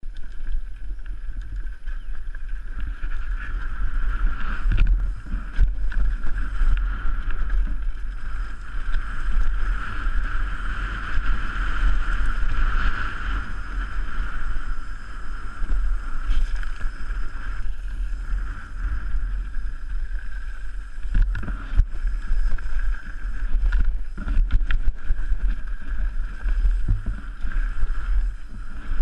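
Wind buffeting a helmet-mounted action camera's microphone on a fast mountain-bike descent. The bike's tyres and frame rattle over a loose, rocky gravel trail, with a sharp knock now and then as it hits stones.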